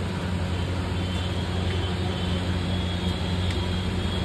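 A steady low mechanical drone, engine-like, over a constant noisy background hum, with a faint high whine in the middle.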